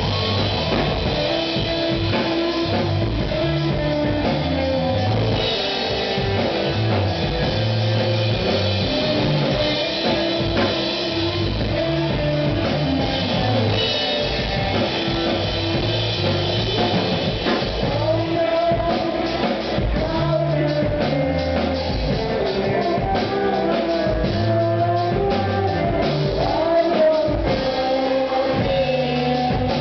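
A live rock band playing: drum kit and electric guitars over a repeating low riff, with a melodic line wavering above it in the second half.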